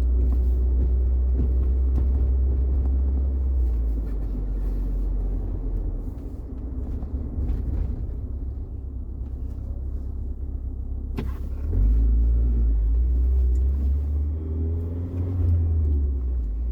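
A pickup truck running, heard as a steady low rumble that eases about four seconds in and swells again near twelve seconds, with a sharp click just before the swell.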